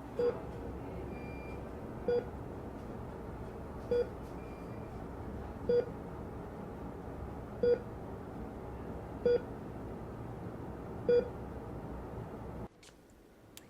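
Hospital heart monitor beeping seven times, a short pitched beep about every two seconds, over a steady hum that cuts off suddenly near the end.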